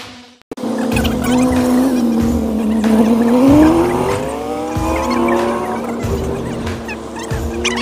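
A car's engine pulling away, its pitch rising for a second or two and then dropping back, mixed with background music that has a steady beat.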